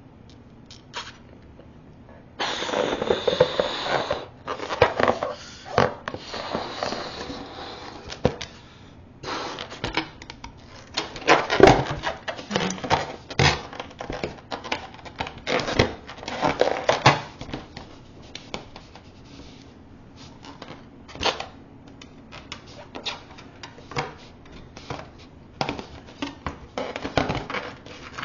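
Breath blown into a latex balloon in three long puffs, followed by a long run of sharp clicks, squeaks and rubbing as the balloon is handled with long nails and its neck is tied.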